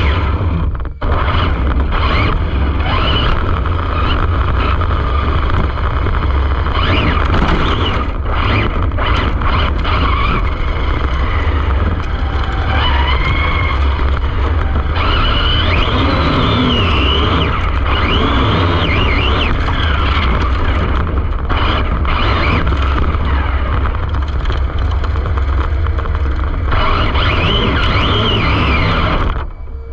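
Arrma Infraction 6S RC car running fast, heard onboard: the brushless motor's whine rises and falls with the throttle over a heavy low rumble of tyres and wind. The sound cuts off abruptly near the end.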